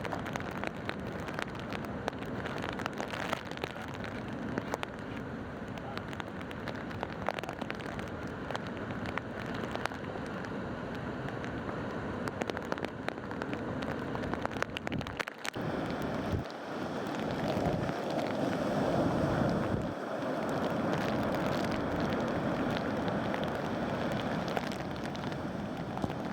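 Gusting tropical-storm wind buffeting the microphone over a steady rush of heavy surf, louder for the last third.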